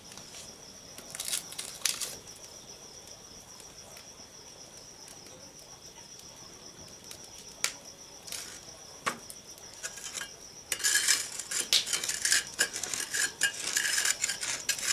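Insects trilling steadily at a high pitch, with a few sharp pops from a burning bamboo campfire. About two-thirds of the way through, a dense, louder run of crackling and clattering sets in and lasts to the end.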